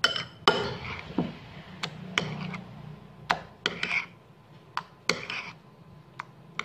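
Metal spoon stirring and scraping minced fish paste in a bowl, making irregular clinks and knocks against the bowl, a few of them ringing briefly, as the paste for fish balls is mixed.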